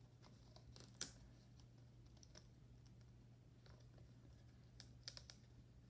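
Near silence with a few faint clicks and taps from hands working the laptop's display connector and its tape: one sharper click about a second in, then a quick cluster of small clicks near the end.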